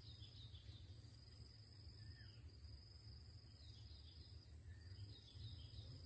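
Faint outdoor ambience: a steady high insect drone that drops out briefly about three-quarters of the way through, with several short, faint bird chirps over it and a low steady rumble beneath.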